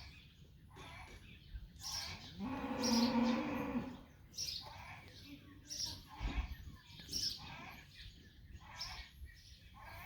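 A cow mooing once, a long call from about two and a half seconds in lasting over a second, with a fainter low call a few seconds later. Short high bird chirps repeat about once a second throughout.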